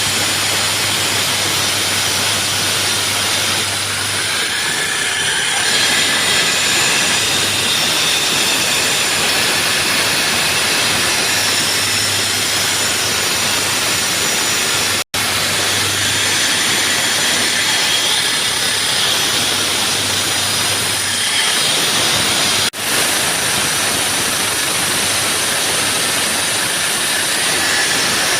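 Concrete-cutting saw running steadily, its blade grinding through concrete with a loud, hissing whine. It drops out for an instant about halfway through and dips briefly a few seconds later.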